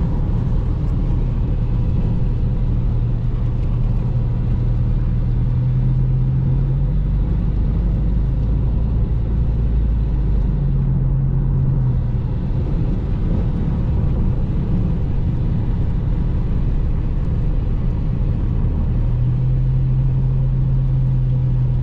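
Car cabin road noise while driving on a wet road: a steady low drone from the engine and tyres with an even hiss, and a low hum that swells and fades a few times.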